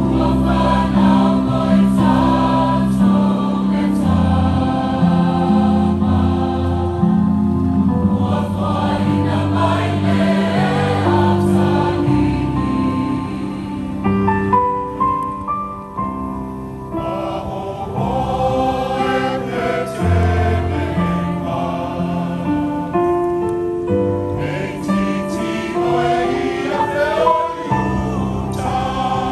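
Choir singing a Christmas carol in sustained harmony, with a softer passage about halfway through.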